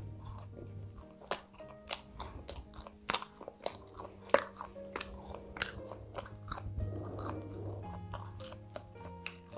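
Close-miked chewing of a banana-filled sweet bread roll, with frequent sharp, crisp crunching clicks, over soft background music with steady held notes.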